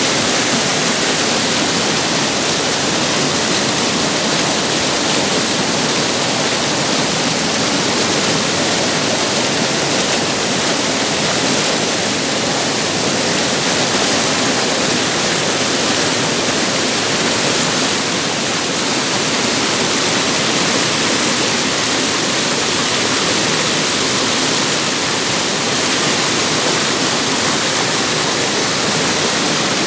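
Spring-fed river water rushing over boulders in white-water cascades, a loud, steady, even rush of water.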